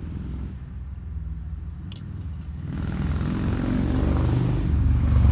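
Motorcycle engine approaching, its low rumble growing steadily louder from about halfway through.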